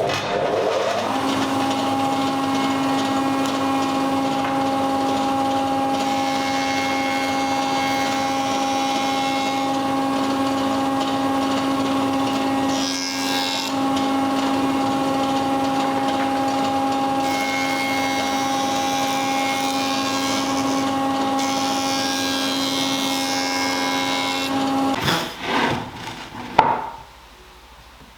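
A power tool's electric motor spins up and runs at a steady pitch while working wood. Twice it gets noisier for a few seconds as it cuts or sands into the wood, and it shuts off with a few knocks about 25 seconds in.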